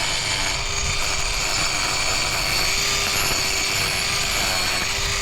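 Mini angle grinder running steadily with a constant motor whine, grinding down a miniature colt's hoof during a trim.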